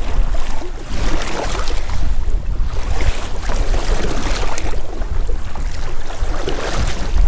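Strong wind buffeting the microphone with a steady low rumble, over water splashing and lapping as a kayak is paddled, the hiss swelling with each stroke about once a second.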